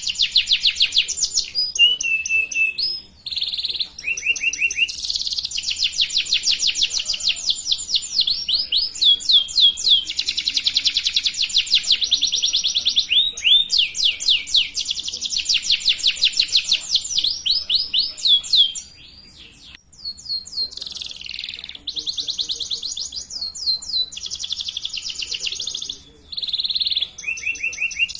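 Canary singing a long, continuous song of rapid rolling trills, fast repeated high notes changing from phrase to phrase, with a few short breaks about 3, 19 and 26 seconds in.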